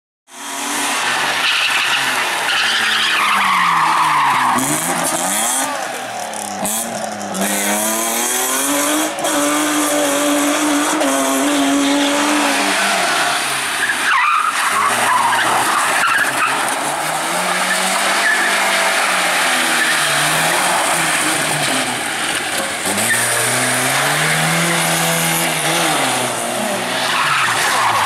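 Rally cars driven hard one after another: engines revving up and dropping back again and again through gear changes and lifts, with tyres skidding and squealing.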